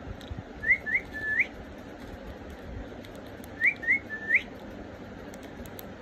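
Clear whistling in two matching runs of three rising notes, two short and then a longer one that swoops up, about three seconds apart, over a steady low hiss. Faint clicks near the end.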